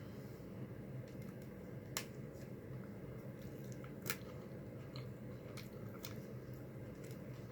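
Close-miked eating of tacos: quiet chewing with a few sharp, crisp clicks, the two loudest about two and four seconds in, over a steady low hum.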